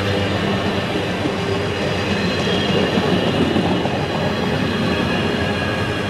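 Intermodal container wagons of a freight train rolling past close by: a steady rumble and rattle of wheels on rail, with steady tones running through it.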